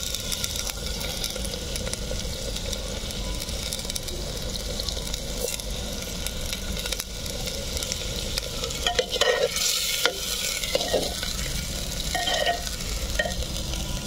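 Chicken and potato pieces sizzling in oil in a clay pot over a wood fire, stirred with a metal spatula. A few louder knocks and scrapes of the spatula against the pot come about two-thirds of the way through.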